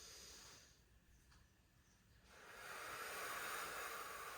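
Slow, deep breathing by a person: a fainter breath trailing off about half a second in, then a longer, louder breath starting about two seconds in.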